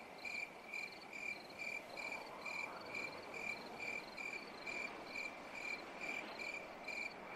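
A night insect chirping steadily, about four short chirps a second, faint over a low background hiss.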